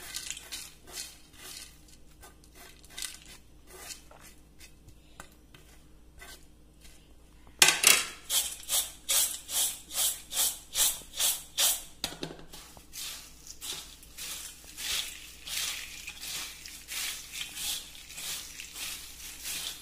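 Dry fried snack mix (peanuts, curry leaves, sev and boondi) in a stainless steel bowl: faint rustling as it is tipped and scraped in, then a loud start about eight seconds in and a rhythmic rattling swish about two times a second as the bowl is tossed, ending about four seconds later. Softer rhythmic rustling follows as it is mixed by hand.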